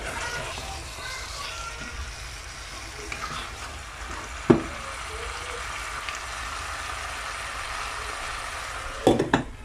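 Chicken pieces and potatoes in masala sizzling in a stainless-steel saucepan as a wooden spatula stirs them, with a sharp knock about halfway through and a few more knocks near the end.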